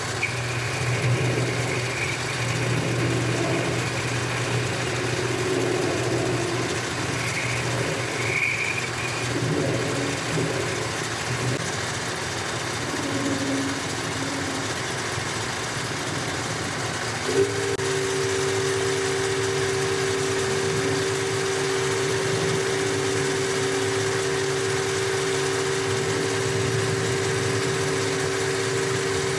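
Boxford lathe running while a parting-off tool cuts into a spinning aluminium bar. About halfway through, a brief click is followed by a steady tone that runs to the end.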